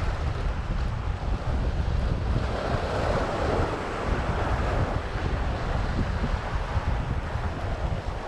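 Strong wind buffeting the microphone with a heavy low rumble, over the wash of rough surf, which swells about three seconds in.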